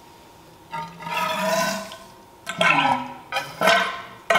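Old hydraulic fork oil glugging out of an upturned Harley-Davidson 49 mm front fork tube into a plastic drain pan. It starts about a second in and comes in three gurgling spells with short gaps between them.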